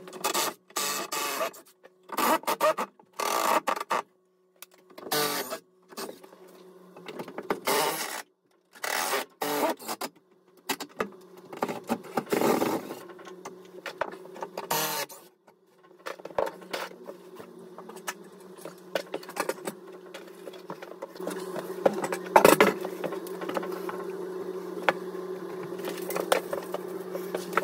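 Cordless power tool working on timber stud work to take it out: at first it runs in short, loud bursts with pauses between, then from about halfway on it runs steadily with a low hum, a few sharp clicks standing out.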